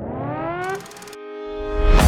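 Music: a synth-like tone gliding upward in pitch for about a second, then settling into a held chord that swells louder toward the end.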